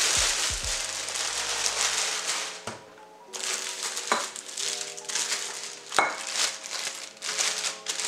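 Clear plastic packaging bag crinkling as it is pulled off a drip coffee maker and its glass carafe, dense at first, pausing briefly, then resuming with two sharp clicks about four and six seconds in. Background music plays throughout.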